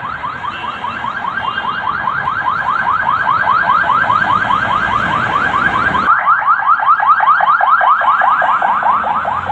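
Electronic alarm, most like a car alarm, sounding a rapid run of short rising chirps, about six a second, with no let-up. Low street rumble underneath drops away about six seconds in.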